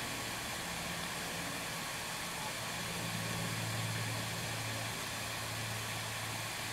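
Water from a garden hose running into a plastic barrel chicken waterer as it fills: a steady rushing with a low hum underneath.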